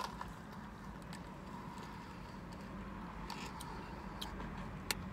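Steady low hum inside a parked car's cabin, with faint sips through a drinking straw and a single sharp click near the end.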